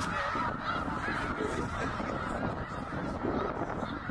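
A large flock of snow geese calling, many honks overlapping at once in an unbroken chorus.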